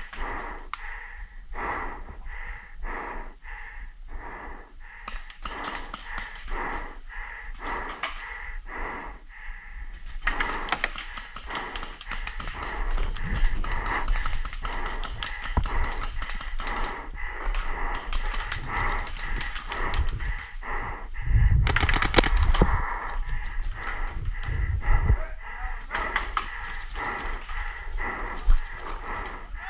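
A paintball player's rapid, heavy panting behind a mask, about two breaths a second, mixed with movement and gear noise. It gets denser and louder in the middle, with a sharp knock about two-thirds of the way through.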